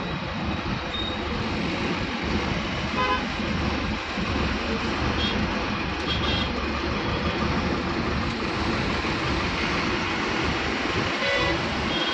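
Steady engine and road-traffic rumble heard from inside a lorry cab in a jam, with short vehicle horn toots about three seconds in, twice around five to six seconds, and again near the end.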